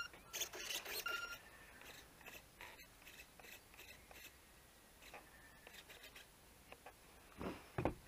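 Faint scraping and rubbing handling noises, with one short electronic beep about a second in and two louder rustling knocks near the end.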